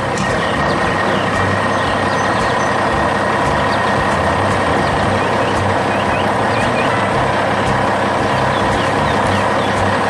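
Heavy dump truck engine running steadily, a dense even mechanical noise with a steady whine held over it.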